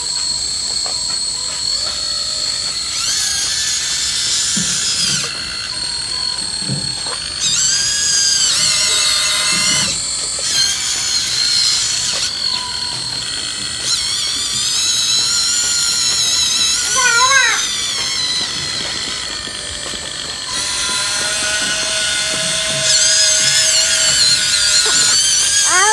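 Bulldozer at work on rock, with repeated long, high-pitched wavering squeals of the kind steel crawler tracks make, over the steady sound of machinery running.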